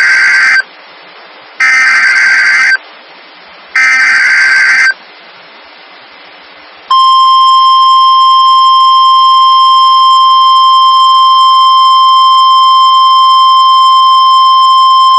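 NOAA Weather Radio emergency alert: the end of one SAME header data burst and two more warbling, screechy data bursts about a second apart. After a short pause, the loud, steady 1050 Hz warning alarm tone comes on.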